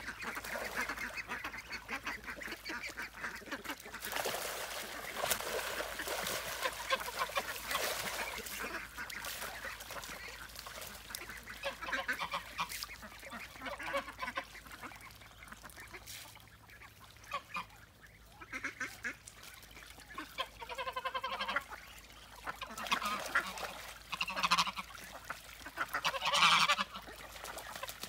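A mixed flock of domestic ducks and geese quacking and honking on and off, with the loudest honking calls a few seconds before the end.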